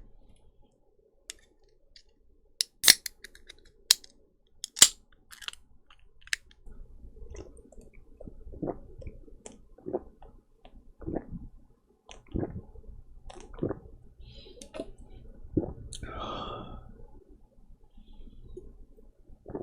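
A beer can gives a few loud, sharp clicks and cracks. Then a person chugs beer, gulping in a steady rhythm about once a second, with a longer breathy sound near the end.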